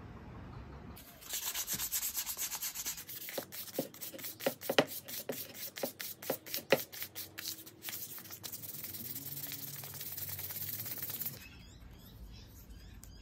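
Sandpaper rubbed by hand over a wooden mallet handle, starting about a second in, with quick back-and-forth strokes through the middle and ending shortly before the end.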